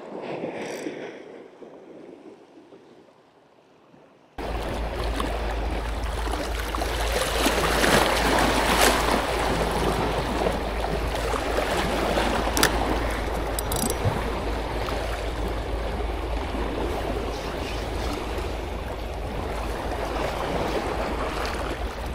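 Sea waves washing against the shoreline rocks, quieter and uneven at first. About four seconds in the sound jumps to a loud, steady rush of water with a heavy low rumble of wind on the microphone.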